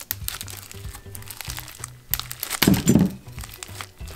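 Clear slime full of fishbowl beads being stretched and squeezed by hand: rapid crunchy crackling and popping of the beads, with a louder squish about two and a half seconds in, over background music.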